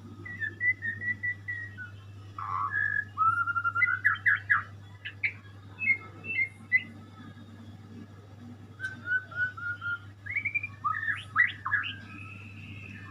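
Murai songbird singing: phrases of repeated whistled notes and quick rising sweeps, in two bouts with a pause of about two seconds in the middle. A low steady hum runs underneath.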